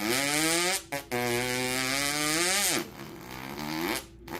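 A person vocally imitating a two-stroke dirt bike at full throttle over a jump: a buzzing, held engine note with a short break about a second in. The note drops in pitch near the three-second mark, then comes back quieter and rising.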